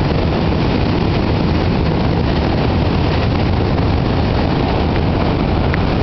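A New York City subway train running across the Manhattan Bridge tracks close by: a loud, steady rumble of wheels on the bridge structure.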